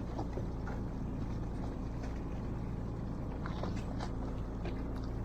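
A fishing boat's engine running at a steady low idle, a constant low hum, with a few faint short ticks over it.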